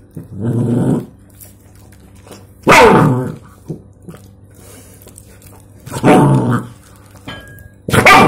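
Mongrel puppy giving four short, loud growling barks, separated by quieter pauses. It is guarding the raw meat it is chewing from a hand on its head.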